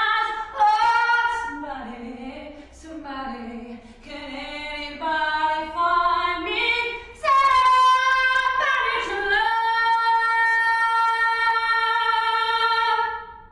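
A woman singing solo without accompaniment, phrases rising and falling in pitch, ending on one long held high note of about four seconds that stops just before the end.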